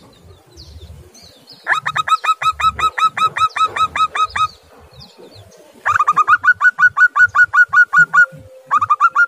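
Zebra dove (perkutut) calling: runs of short, clear staccato notes at about six a second, in three bouts. The last bout starts near the end.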